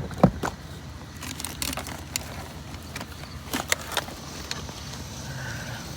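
Scattered clicks and knocks of junk being handled and sorted through by hand, over a low steady hum.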